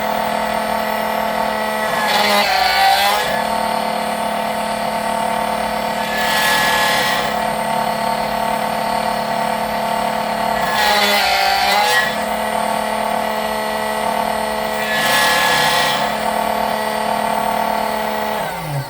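Key-cutting machine's motor running steadily while its cutter grinds on a Tibbe key blade, louder and grittier four times for about a second each. The motor winds down and stops near the end.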